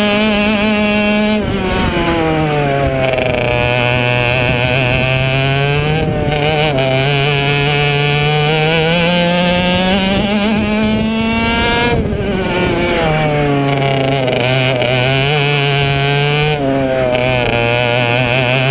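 Single-cylinder IAME 125 two-stroke kart engine heard from on board at racing speed. It revs up slowly and steadily along the straights, with the pitch dropping sharply as the driver lifts for corners about a second and a half in, again about twelve seconds in, and once more near the end.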